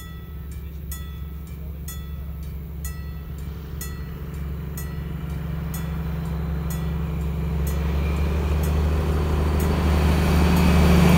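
DB class 218 diesel-hydraulic locomotive hauling Intercity coaches approaches, the deep drone of its V12 diesel engine growing steadily louder as the train nears. Through the first half a bell dings about twice a second and is gradually covered by the rising train noise.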